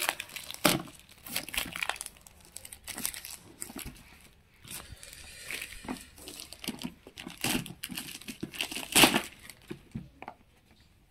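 Plastic courier mailer bag crinkling and tearing in irregular bursts as it is pulled open and a cardboard box is slid out of it. The loudest crackles come just under a second in and about nine seconds in, and the sound thins out near the end.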